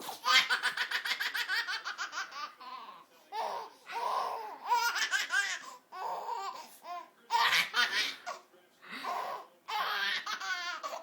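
A baby laughing hard in repeated fits: a long run of quick laughs at first, then several shorter bursts with brief pauses between them.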